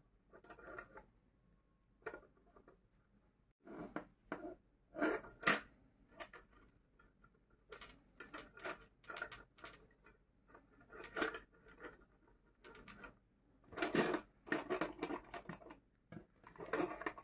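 Irregular short rustles and light clicks of handwork: yarn and a crocheted bag being handled while a crochet hook works yarn through a metal purse frame. The busiest stretch is near the end.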